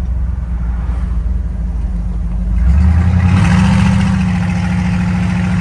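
1973 GMC pickup's engine running while driving. About three seconds in it picks up in pitch and gets louder as the truck accelerates, with more road noise.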